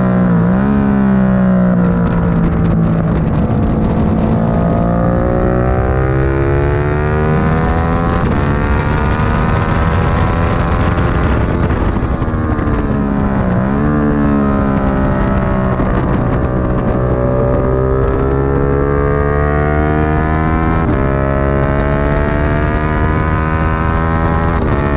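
Motorcycle engine heard from an onboard camera at track speed, its revs climbing and falling through corners, with quick gear changes near the start and about halfway through. Steady wind rush runs under it.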